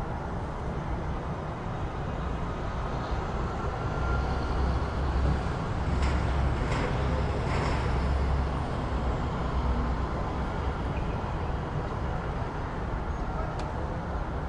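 City street traffic: a steady wash of passing vehicles with a deep engine rumble that swells for several seconds in the middle as a heavy vehicle goes by, and a few short clatters or knocks.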